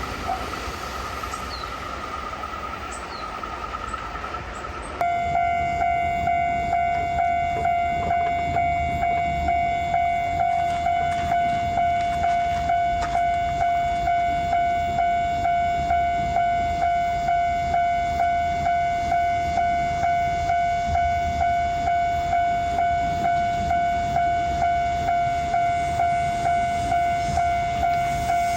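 Train noise with a thin whine, then about five seconds in a railroad crossing's warning bell starts up abruptly and rings in a steady, evenly repeating ding-ding.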